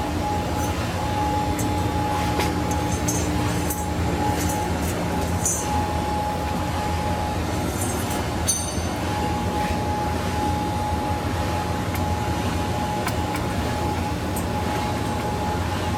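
Automatic hydraulic ring bending and laser welding machine running its automatic cycle: a steady mechanical hum with a few constant tones, and scattered light clicks and ticks of metal parts.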